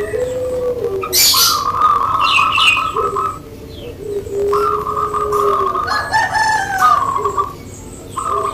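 Zebra dove (perkutut) singing its cooing song in repeated phrases: a trilled, purring note alternating with a lower drawn-out coo, in the four-beat 'ngepat' rhythm prized by keepers. Other small birds chirp briefly in between.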